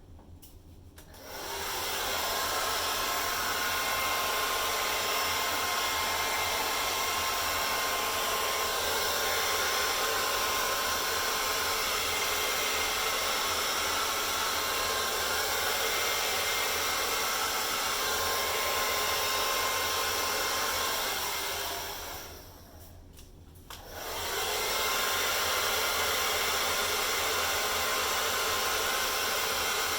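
Hairdryer running steadily with a faint whine, blowing acrylic paint across the canvas in a Dutch pour. It switches on about a second in, cuts off for about two seconds roughly three quarters of the way through, then runs again.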